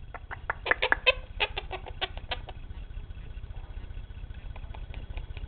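Quaker parrot (monk parakeet) clucking like a chicken: a quick run of short clucks over the first couple of seconds, then a few fainter ones.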